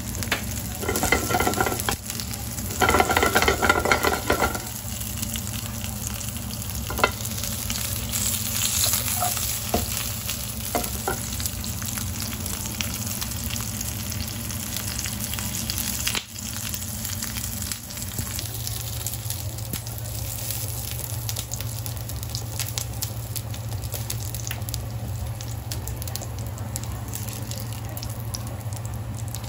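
Dried octopus pieces sizzling and crackling as they fry in a nonstick pan. A spatula scrapes and stirs them loudly twice in the first few seconds, with a few sharp clicks later.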